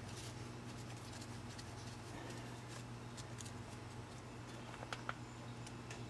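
Faint, scattered light metallic clicks and ticks as a brake caliper slider bolt is threaded in by hand, over a steady low hum. Two sharper clicks come about five seconds in.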